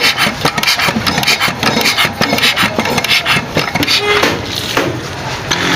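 Rapid, irregular rasping and clattering strokes, several a second, from hand work on an R180 single-cylinder diesel engine's fuel system while its injector nozzle is being checked out of the engine.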